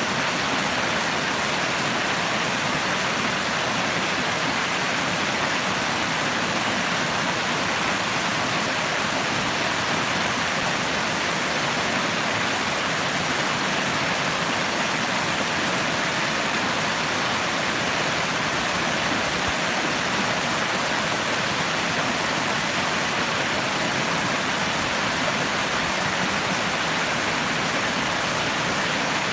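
Running water rushing steadily, an even, unbroken hiss with no splashes or changes.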